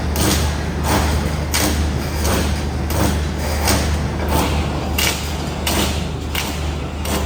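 Concrete-pipe reinforcement cage welding machine running: a steady low electrical hum with short noisy bursts repeating about every half second as the welding head works around the cage.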